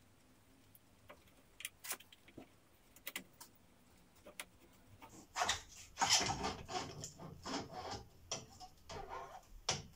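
Scattered light clicks and knocks of metal parts being handled. From about five seconds in comes a denser run of scraping and clunks as a Honda CBR929 Fireblade's upside-down front fork leg is worked down out of its triple clamps.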